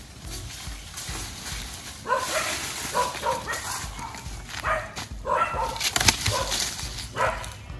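Repeated short animal calls, several in quick succession at times. About six seconds in, a bundle of dry branches is thrown down onto the ground with a sharp crash.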